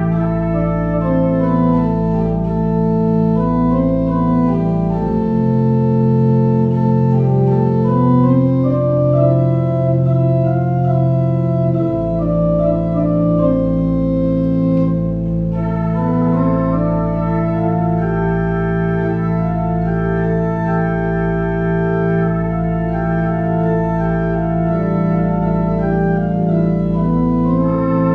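Organ playing slow, sustained chords over a deep held bass note; the bass drops out for several seconds midway and then comes back in.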